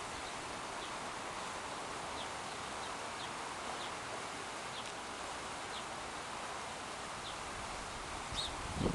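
Steady rush of a fast, flood-swollen river, with faint high peeps from Canada goose goslings repeating every half second to a second.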